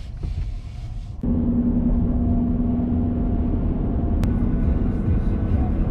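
Road and engine rumble inside a moving vehicle, with a steady drone over it. It starts abruptly about a second in, after quieter cabin noise, and there is one short tick about four seconds in.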